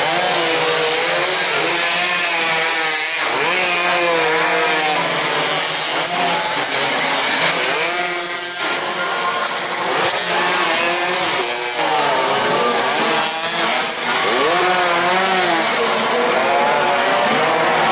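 Racing motorcycles passing at full throttle, their engines revving up and dropping back again and again in pitch as the bikes accelerate, shift and brake through the corners.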